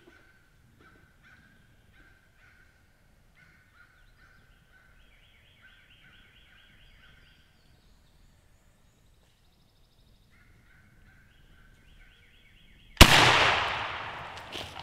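A wild turkey calls repeatedly in short rattling bursts. About 13 seconds in, a pump-action Remington 870 shotgun fires once: a single very loud blast that rings out and fades.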